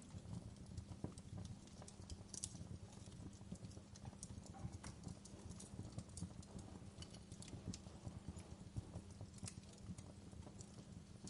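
Wood fire crackling softly: irregular small snaps and pops over a low, steady rumble.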